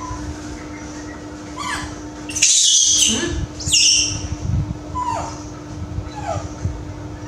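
Baby monkey crying: short whimpering cries that fall in pitch, with two loud shrill screeches about two and a half and nearly four seconds in. A steady low hum runs underneath.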